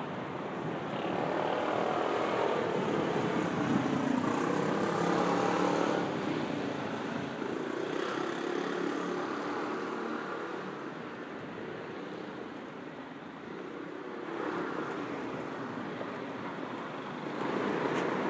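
Road traffic passing on a city street: the noise of vehicles swells up and fades away in waves, loudest over the first six seconds, with another rise near the end.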